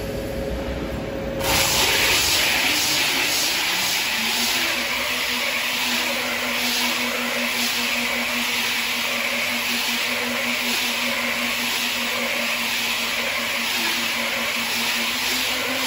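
Two-shaft automatic roll cutting machine running: a steady hissing rush starts suddenly about a second and a half in, and a steady low motor hum joins a few seconds later.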